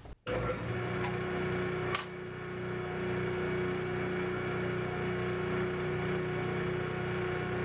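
Grizzly G0858 8-inch jointer with a helical cutterhead running steadily at speed with no wood being cut yet, a constant hum with one even tone, and a light knock about two seconds in.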